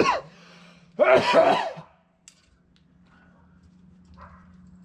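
A person sneezing loudly: a short sharp burst, then a louder voiced outburst about a second later.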